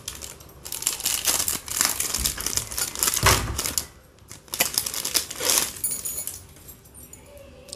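Clear plastic bangle wrapping crinkling and rustling in irregular bursts as a bundle of panchaloham (five-metal) bangles is handled and pulled from a box. There are a few faint metallic rings of the bangles around two-thirds of the way in.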